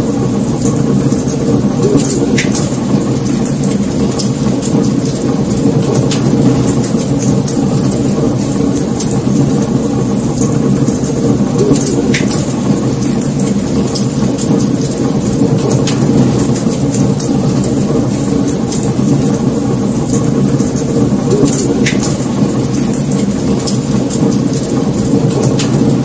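Wood fire burning: a steady low rush from the flames, with sharp crackles and pops every few seconds.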